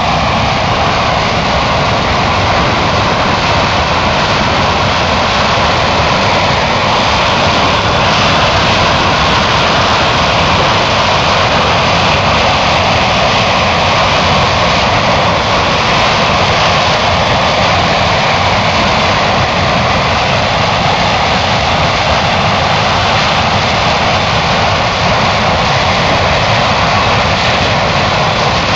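Loud aircraft engine running steadily, its sound not changing in pitch or level.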